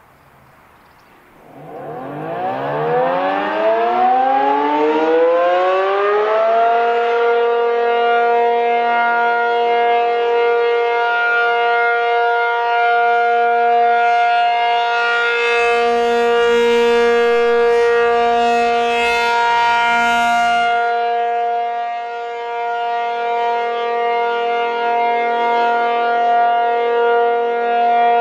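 ACA P-50 rotating outdoor warning siren winding up from a low pitch to full speed over about five seconds, then holding a steady tone on its Alert signal. Its loudness swells and dips a little as the horn turns.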